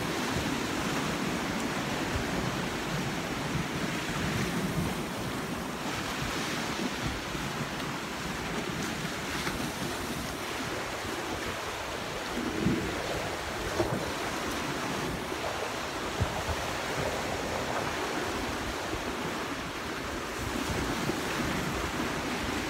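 Steady wash of sea surf, with wind buffeting the microphone.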